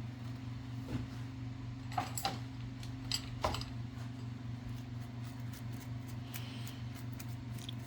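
Light metallic clicks and clinks of a cleaned typewriter carriage and its small metal parts being handled, a handful of them in the first few seconds and fainter ones later, over a steady low electrical hum.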